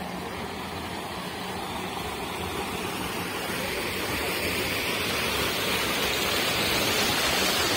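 Steady rush of running water, growing gradually louder.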